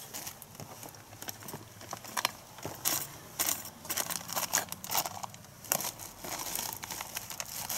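Crinkling and rustling of a trapper's gear being handled while he gets out a trap pan cover, with scattered sharp clicks at an irregular pace.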